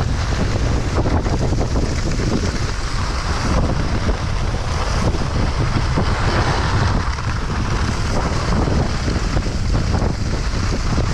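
Steady wind rush buffeting a chest-mounted GoPro's microphone during a fast ski descent, with the hiss and scrape of skis on snow.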